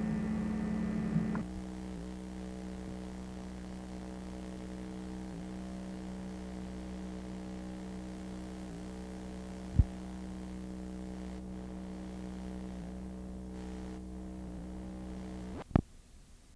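Steady electrical mains hum, a buzz of several fixed pitches, that steps down in level about a second and a half in. A sharp click comes near the middle, and another just before the sound cuts off.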